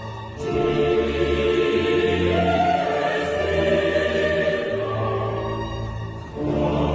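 Background music: choral, operatic-style singing over orchestral accompaniment, with brief dips in level near the start and near the end.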